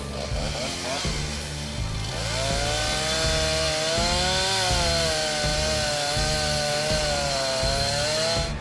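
Chainsaw running at high revs as it cuts through a tree, its engine note rising about two seconds in and wavering as the chain bites, over background music with a steady beat.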